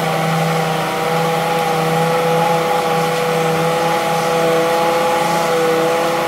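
Hitachi EX200 hydraulic excavator running at a steady engine speed, with a steady whine over the engine sound.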